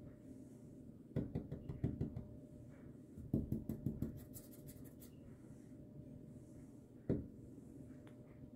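Two short runs of quick light knocks and scratches close to the microphone, about a second each, then a single knock near the end, over a quiet background.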